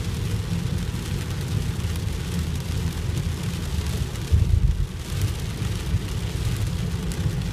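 Inside a moving car in heavy rain: a steady low engine and wet-tyre rumble with rain hissing on the windscreen, swelling briefly louder about four and a half seconds in.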